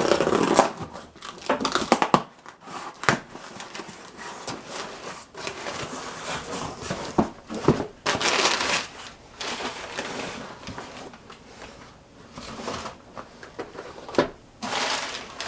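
Shipping packaging crinkling and rustling as a boxed model train car is unwrapped by hand, with irregular rustles and a few sharp taps of the box being handled.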